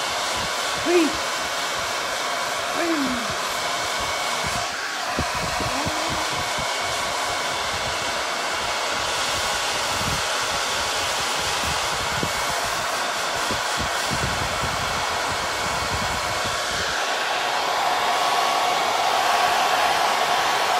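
Handheld hair dryer running steadily, a continuous rush of blown air that grows a little louder near the end.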